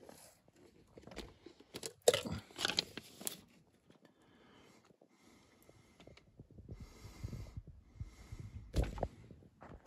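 A paper flyer being handled: intermittent rustling and crinkling, with a sharp click about two seconds in and a dull thump near the end.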